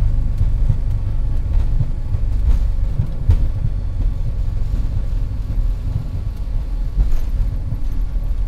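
Low, steady rumble of an airliner rolling out on the runway after touchdown, heard from inside the cockpit, slowly easing as the aircraft decelerates under braking. A single sharp click about three seconds in.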